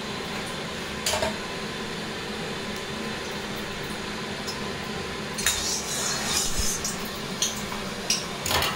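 Steel ladle knocking, clinking and scraping against an iron wok as oil is spread around it. There is one knock about a second in and a run of clinks and scrapes from about halfway through, over a steady low hiss.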